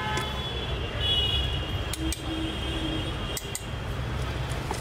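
Metal spoons clinking and scraping against a stainless steel tin and bowls as puffed rice and spice mix are stirred together for jhal muri, with a few sharp clinks around the middle. A steady low rumble of background noise runs underneath.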